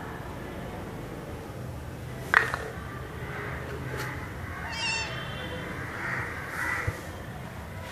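Young kitten meowing, one clear pitched call about five seconds in and fainter calls around it, with a single sharp tap on the hard floor about two and a half seconds in and a small click near the end.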